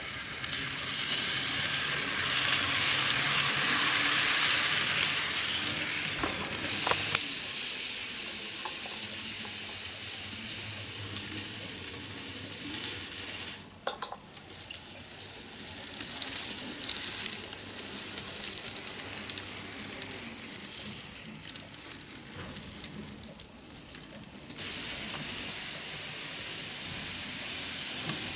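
N gauge model electric trains running on the layout's track: a steady hissing rattle of small wheels and motors on the rails, louder for a few seconds early on as a train passes close, with a few sharp clicks. The sound changes abruptly twice where the shot changes.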